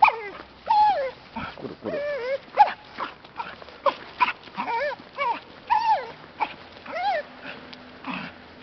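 Small dog whining and yipping with excitement, a rapid string of short high cries that rise and fall in pitch, about two a second, dying away near the end. The dog is crying out for joy at being walked.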